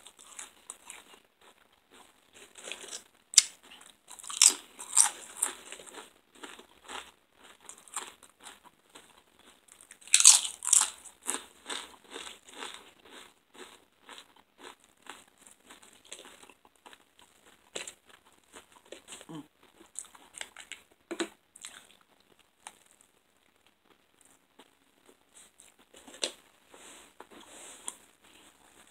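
A person biting into and chewing crunchy food close to the microphone. There are loud crunches about three to five seconds in and again around ten seconds in, then quieter, sparser chewing with one more sharp crunch near the end.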